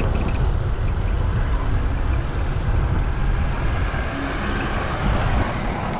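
Road traffic noise: motor vehicles passing on a busy road, a steady heavy low rumble with a rushing hiss on top.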